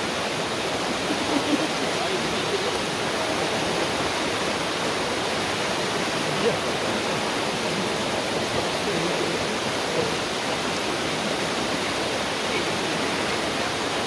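Water rushing steadily over a rock slab in a shallow jungle cascade, an even unbroken rush.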